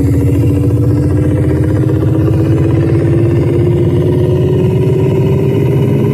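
Car trunk sound system with Eros Target Bass 3K subwoofers and 7Driver MB 400 mid-range drivers playing a track loudly: heavy buzzing bass under one tone that rises slowly in pitch.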